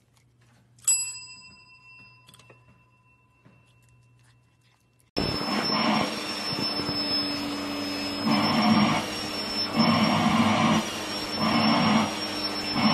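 A chrome service bell struck once, ringing with a long decaying tone. About five seconds in, a vacuum cleaner starts abruptly and runs steadily with a high whine, its sound swelling roughly every second and a half as the hose nozzle is run over a cat's fur.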